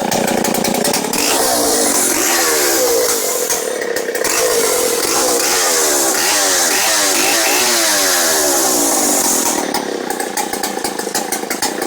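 Stihl Contra two-stroke chainsaw running at high speed, its pitch rising and falling several times, then dropping back to a rattling idle near the end.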